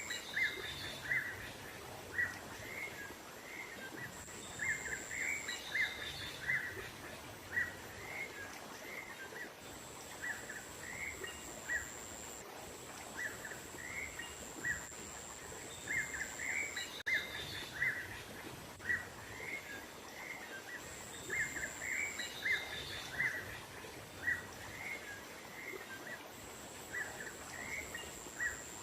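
Small songbirds' quick chirping calls, repeating in clusters, from a bird-lure (pikat) recording over nature ambience. A high, thin, steady note comes and goes every few seconds.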